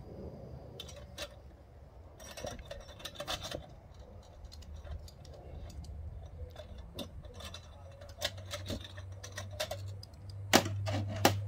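Scattered light metal clicks and clinks as the simmer ring is worked over a Trangia 25 storm cooker's spirit burner with the pot gripper, knocking against the aluminium windshield, to turn the flame down. A low steady hum comes up about eight seconds in, and a quick run of louder clinks comes near the end.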